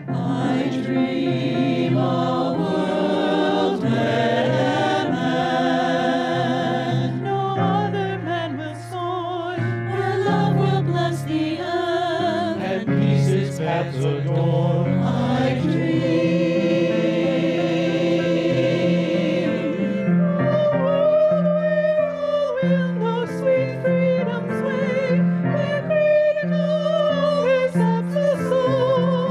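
Small mixed vocal ensemble of men's and women's voices singing a sacred song together, the sustained notes wavering with vibrato.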